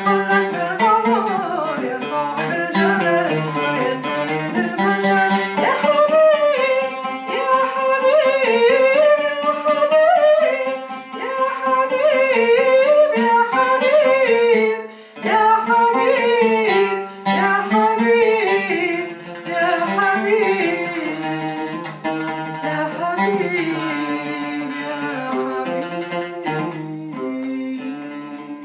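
A woman's mezzo-soprano voice singing an Arabic devotional song, accompanied by a plucked oud. The melody bends up and down with ornaments over the oud notes, and near the end it settles on held notes that fade out.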